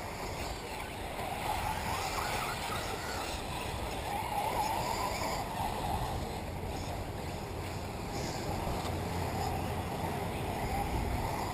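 Radio-controlled off-road model cars racing, their motors whining and rising and falling in pitch as they speed up and slow down, with wind rumbling on the microphone.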